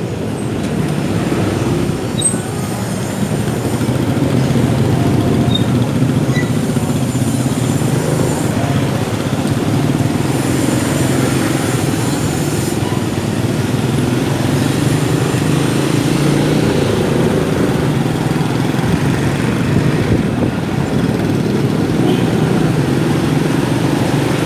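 Motorcycle running steadily while riding through city traffic, its engine and road noise mixed with the traffic around it.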